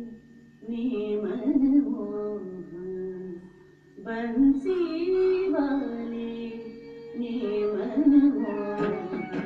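Carnatic vocal music for a Bharatanatyam varnam in raga Mohanam: a singer carries a melodic line in long, pitch-gliding phrases with short breaths between them. A few sharp percussion strokes come in near the end.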